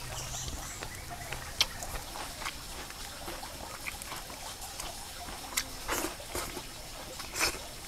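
A man eating grilled fish with his fingers: wet chewing and lip smacks, with scattered short mouth clicks, the loudest about five and a half seconds in and near the end.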